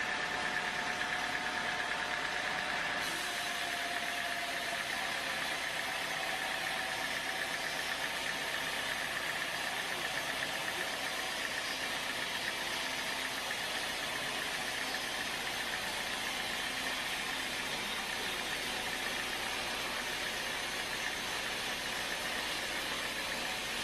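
Sawmill machinery running steadily: a constant mechanical noise with a high whine held throughout and a lower tone that fades out in the first several seconds.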